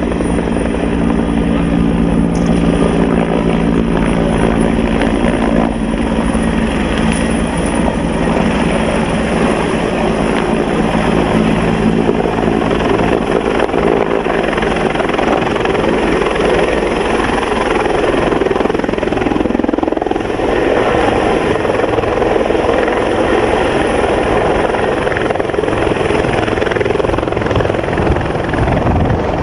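Helicopter running close by, a steady, loud rotor and engine noise. A few steady low tones under it in the first several seconds fade out about a third of the way in.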